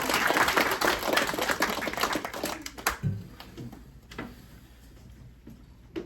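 Audience applauding, the clapping dying away about three seconds in, followed by a few scattered knocks and a low thump.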